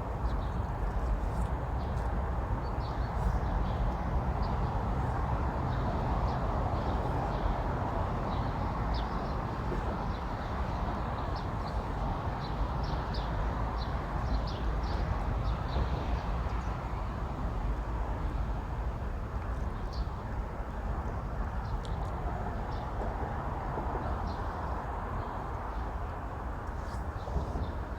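Steady low outdoor rumble with small birds chirping in short, repeated high notes, busiest through the middle stretch.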